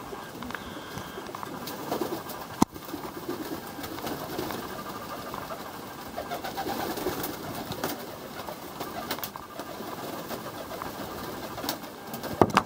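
Young Serbian highflyer pigeons cooing, with a sharp clap about two and a half seconds in and a few more sharp claps near the end.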